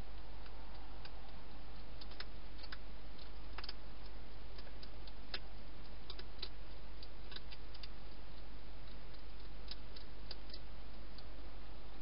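Wild hedgehog eating, a scatter of sharp irregular clicks of crunching food over a steady hiss and low hum.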